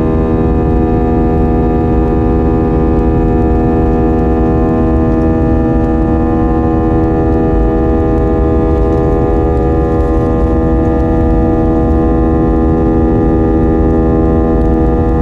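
Airbus A320 airliner heard from inside the cabin while climbing after takeoff: the jet engines at climb power make a loud, steady hum of several held tones over a low rumble of engine and air noise.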